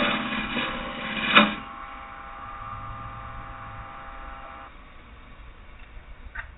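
Wood lathe running with a steady whine while a carbide detailer tool cuts into very green oak: a loud scraping cut through the first second and a half, ending in a sharp peak, as the tool tears up the bark. The whine cuts off about four and a half seconds in, followed by a faint click.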